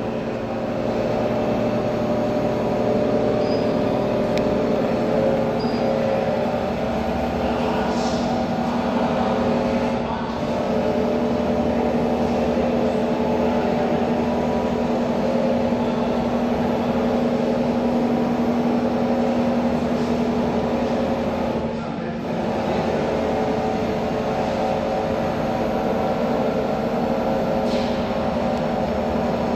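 Pipe-bending machine running: a steady machine hum with several constant pitches, broken by a few sharp clicks and a short dip about two-thirds of the way through.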